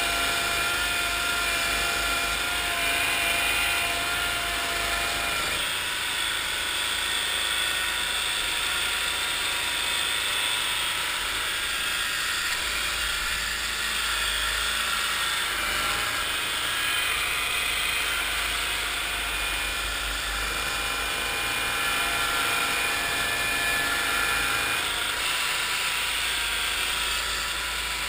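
1974 Cushman Trackster's engine running steadily while the tracked machine floats and drives through marsh water. Its pitch shifts slightly about five seconds in and again near the end.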